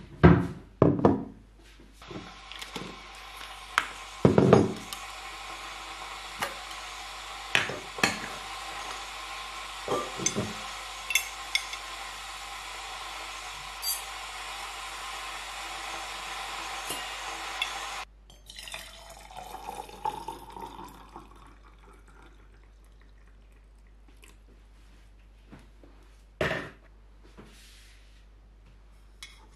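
Instant coffee being made in a stainless-steel tumbler: metal clanks of the lid and a spoon, then a steady water-like rushing that cuts off suddenly about two-thirds of the way through. Liquid is then poured in, rising in pitch as the tumbler fills, and a single sharp spoon clink comes near the end.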